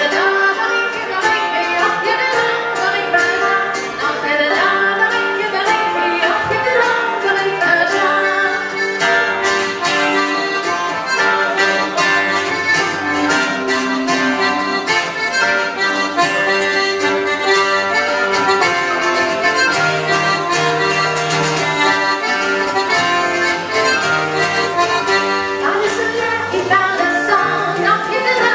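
Live Breton folk band playing a dance tune, led by accordion over strummed strings with a steady beat.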